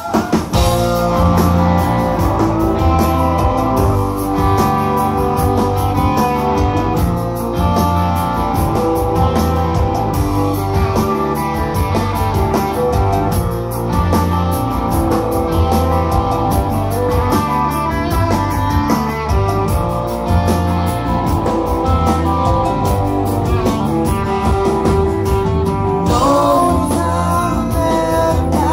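Live rock band playing loudly: electric guitars and a drum kit come in together right at the start and keep going with a full band sound.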